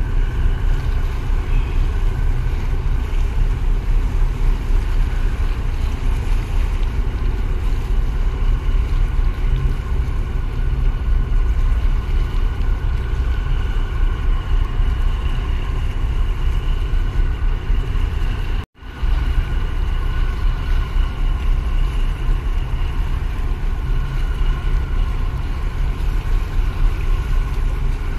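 Tugboat engine working steadily as the tug pushes against a container ship's hull, with a faint steady whine over a low rumble, under gusting wind on the microphone. The sound drops out for a split second about two-thirds of the way through.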